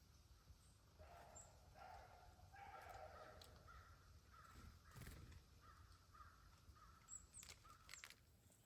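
Crows cawing faintly, two runs of short harsh calls repeated in quick succession, with a few faint high chirps from smaller birds.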